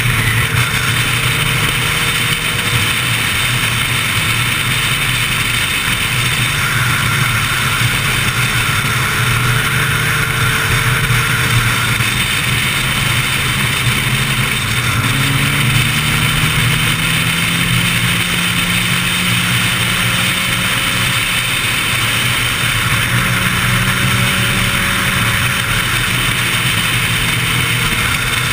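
Inline-four sport motorcycle engine running at highway speed, its note drifting up and down a little with the throttle, under a heavy rush of wind on the camera.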